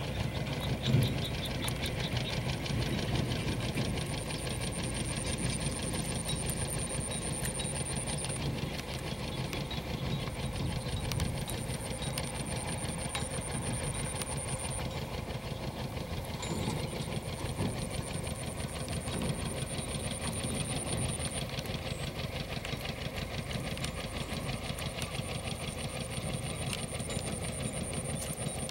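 Rural outdoor ambience: a steady low rumble with a thin, high steady buzz that sounds in long stretches of several seconds, broken by short pauses.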